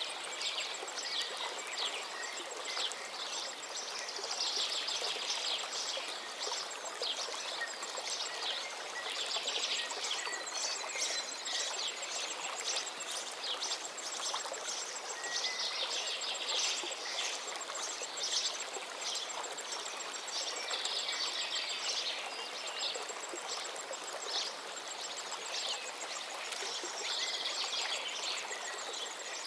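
Many birds twittering and chirping, in bursts of rapid high chirps that come every few seconds, over a steady background hiss.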